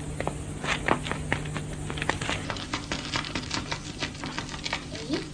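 Quick, irregular light taps and clicks, a pattering that grows denser about two seconds in, over a steady low hum.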